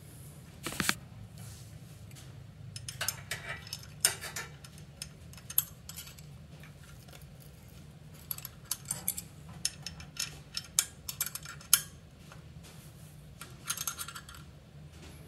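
A small metal wrench and steel bolts and nuts clinking and clicking against a metal bicycle sprocket as its mounting bolts are fitted and tightened: scattered sharp clinks, some in quick runs, over a faint steady low hum.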